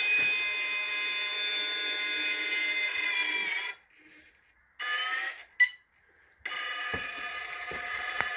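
Holmes Hobbies Revolver brushless motor of an RC rock crawler whining steadily under throttle as the crawler climbs a concrete step. The whine cuts out a little under four seconds in, comes back for about a second with one short sharp peak, then picks up again from about six and a half seconds. A few light knocks come near the end.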